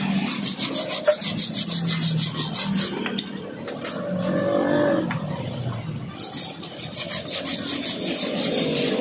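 A wire brush scrubbing back and forth across the wet fins of a radiator core in rapid strokes, about five a second. The strokes pause for about three seconds in the middle and then resume.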